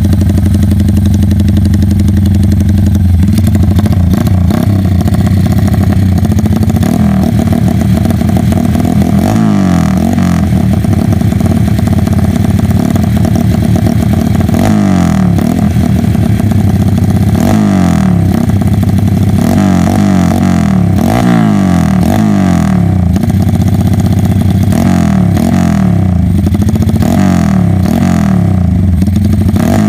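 Honda Tiger single-cylinder four-stroke motorcycle engine with a 'helikopter' aftermarket exhaust, loud. It idles steadily at first, then from about seven seconds in it is revved over and over in quick throttle blips, the pitch rising and dropping with each rev.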